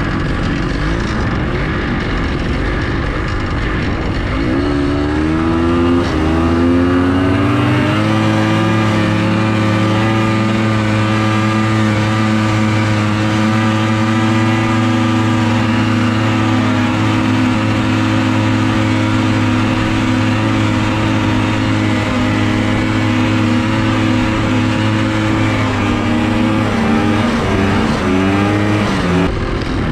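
Snowmobile engine running under throttle. It climbs in pitch over a few seconds as the machine accelerates, holds at a steady high speed for most of the time, then drops near the end as the throttle comes off.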